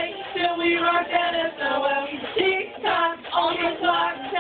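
Women's voices singing a song together in one melody line, holding notes and moving in steps between short phrases.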